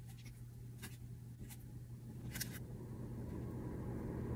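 Light fabric rustling in short strokes, a few times, as hands smooth and pin layered fabric, over a steady low hum; a low rumble builds near the end.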